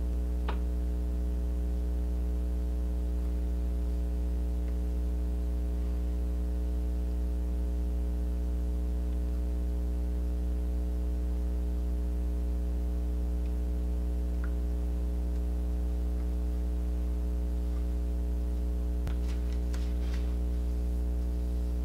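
Steady electrical mains hum, a low buzz with a stack of overtones, with a few faint ticks.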